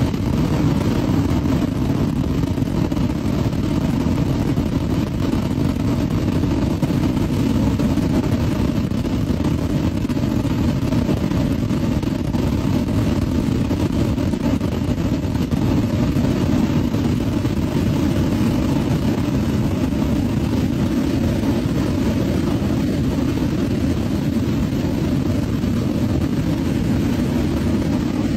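A massed barrage of gunpowder rockets launching together, heard as one steady, unbroken rushing noise with no separate bangs standing out.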